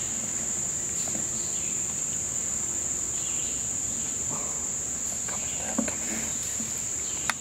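Insects singing in the woods in a steady, high-pitched drone that does not let up. A single sharp click sounds just before the end.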